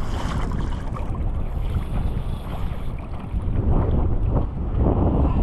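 Wind buffeting the microphone over choppy sea water splashing against a kayak's hull.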